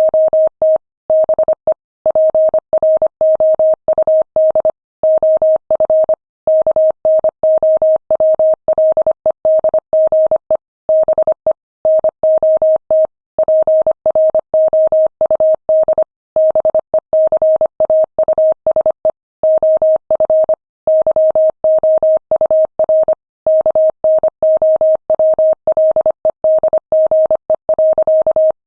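Morse code sent at 25 words per minute: a single steady mid-pitched tone keyed on and off in quick dots and dashes, with short gaps between letters and longer ones between words.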